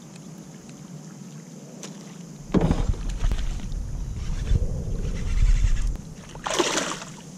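A largemouth bass blowing up on a walking topwater lure and splashing on the line: a sudden splash about two and a half seconds in, low rumbling handling noise as the hook is set, and another burst of splashing near the end.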